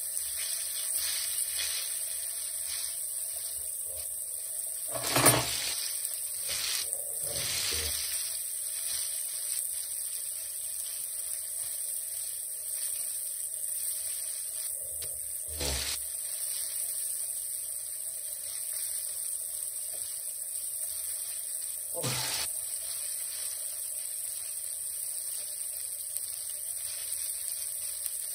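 Flour-dredged Black Sea gobies frying in a pan, a steady sizzle, with a few short knocks, the loudest about five seconds in.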